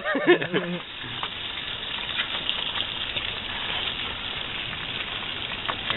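Food sizzling in a frying pan on a wood stove, a steady hiss.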